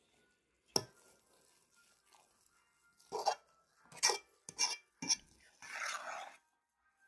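A utensil knocking and scraping against a mixing bowl as mashed potatoes and cheese are stirred together: a sharp knock about a second in, then a run of short clacks and scrapes, and a longer scrape near the end.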